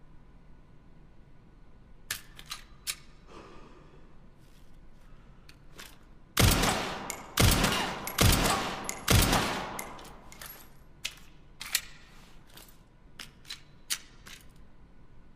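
Four loud SIG Sauer P320 pistol shots about a second apart, each trailing off, with sharp metallic clicks before and after them.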